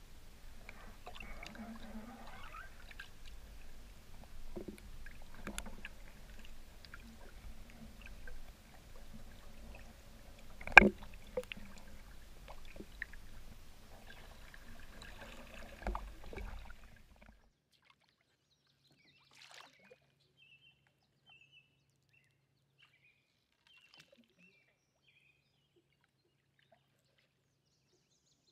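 Solo canoe being paddled: water sloshing and swishing with the strokes, scattered knocks, and one sharp knock about eleven seconds in. The sound cuts off at about seventeen seconds, leaving near silence with a few faint high chirps.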